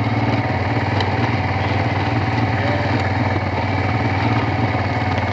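Honda Transalp's V-twin engine running steadily while riding at an even cruising speed, with wind noise over it.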